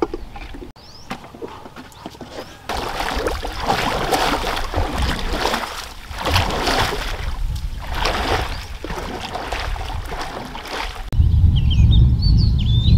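Wooden canoe being paddled hard, the paddle splashing and churning the water in surges every second or two. Near the end a loud low rumble takes over.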